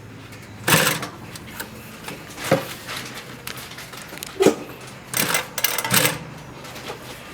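Consew 206RB-5 single-needle walking-foot industrial sewing machine stitching in short runs: a brief burst near the start, two quick stabs in the middle and a longer run of about a second near the end. A steady low hum sits underneath between the runs.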